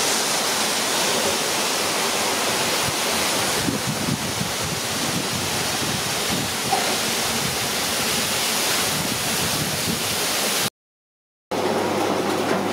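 Pakodas deep-frying in a large kadai of oil, a steady sizzle, mixed with water pouring from a hose into a metal pot. The sound drops out completely for about a second near the end.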